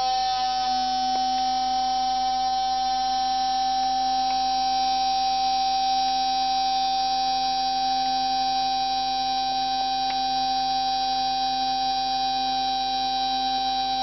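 Universal-3 bench lathe running steadily under power: a constant electric motor and drive hum made of several steady tones, with a few faint ticks.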